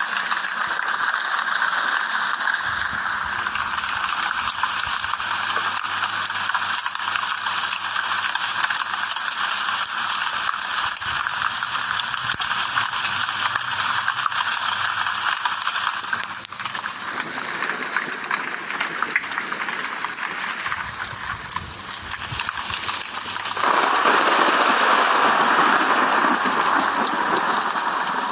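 Rain falling steadily, a dense patter of countless drops. The sound changes abruptly about 16 seconds in and again about 23 seconds in, becoming a little louder and fuller after the second change.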